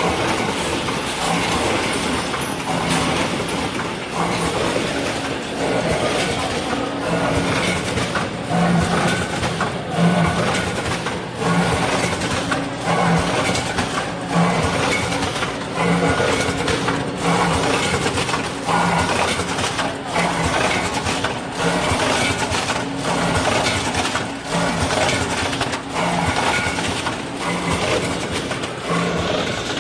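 Vertical form-fill-seal packing machine running, working through its bag cycle with a regular mechanical rhythm about once every one and a half seconds.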